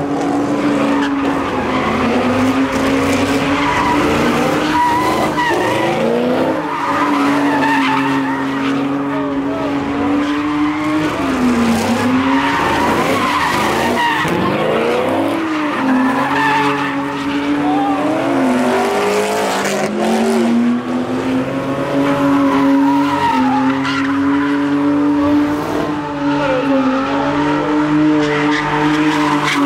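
A car doing donuts, its engine held at high revs while the rear tyres spin and screech on the asphalt. The engine note dips briefly and climbs back several times as the throttle is eased and reapplied.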